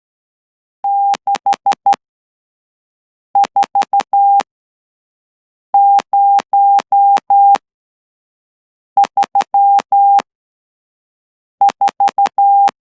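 Morse code hand-sent on a straight key as a keyed CW sidetone: one steady beep switched into dots and dashes at about 12 words per minute. Five characters are sent one at a time, each of about five elements, with a gap of over a second between them and a faint click at each key-down and key-up.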